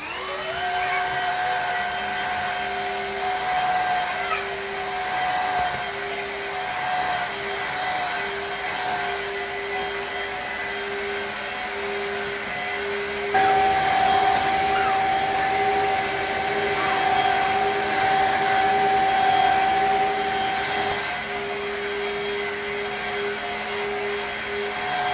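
Shark HydroVac wet-dry vacuum mop motor spinning up with a rising whine, then running with a steady hum and whine. About halfway through it steps up to a louder, higher pitch for several seconds, then drops back to its earlier level.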